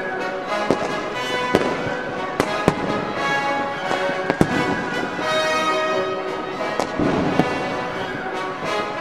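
Music with steady sustained tones, overlaid by about eight sharp firework bangs at irregular intervals.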